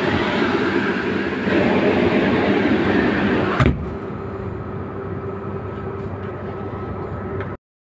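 York air handling unit motor running with a loud, rough mechanical noise from dry bearings, which need changing. About three and a half seconds in a sharp knock comes, after which the noise is quieter and steadier, with a thin whine in it.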